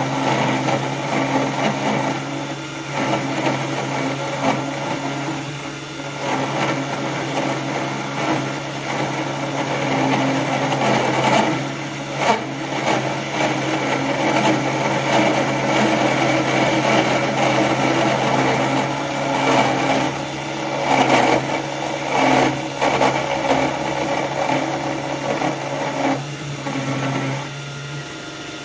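Cheap 775 DC motor spindle belt-driving a 10 mm end mill through metal: a steady motor tone under harsh cutting noise that swells and eases as the cut is fed in by hand. Near the end the cutting and the motor tone fall away.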